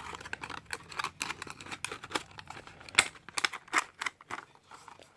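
Packaging of a boxed diecast toy car being opened by hand: a busy run of crinkles, clicks and taps, the sharpest snap about three seconds in.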